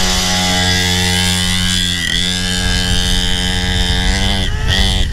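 Small pit bike engine running at a steady high speed, dipping slightly about two seconds in, then revving up near the end.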